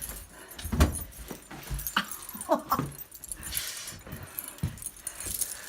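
A dog whining in short falling cries, among a few thumps and a jingle of keys.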